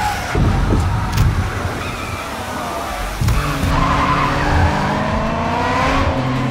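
Car engine revving and tyres squealing as a car drifts; from about halfway a long rising tyre squeal runs over a steady engine drone.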